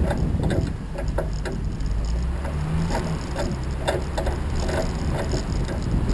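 A vehicle running over rough ground: a steady low rumble with irregular clicks and rattles throughout.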